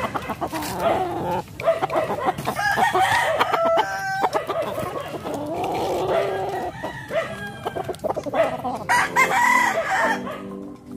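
Gamefowl chickens clucking and calling over one another, with a rooster crowing about midway.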